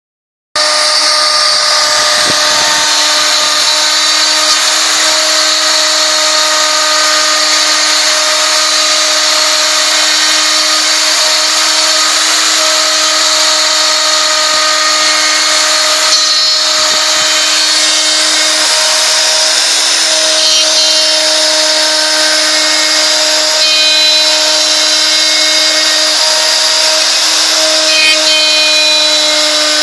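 Homemade CNC machine's spindle motor running at a steady speed while cutting, a constant whine over a hiss. It starts abruptly about half a second in.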